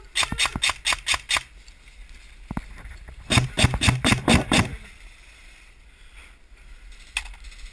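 Airsoft gun fired in two rapid strings of sharp shots, about six or seven a second: one at the start and a second, slightly louder string a little after three seconds in.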